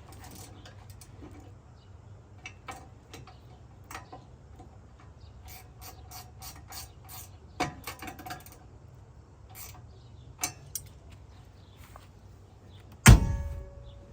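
Irregular small metallic clicks and rattles of hand work on steel tube half-door hardware. Near the end comes one loud metal clank with a brief ringing after it.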